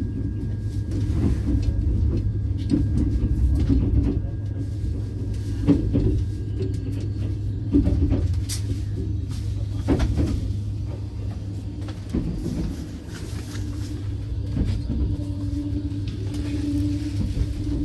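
Inside a moving passenger train carriage: steady low rumble of the wheels running on the rails, with a few sharp knocks and rattles over the track.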